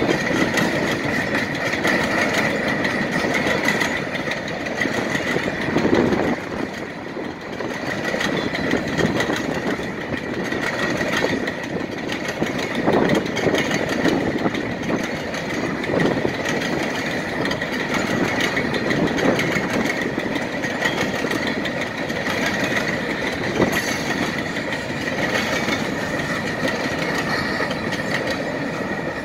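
Loaded stone hopper cars of a freight train rolling through a grade crossing, steel wheels rumbling and clicking over the rails, with a steady high tone running above the rumble. Wind buffets the microphone.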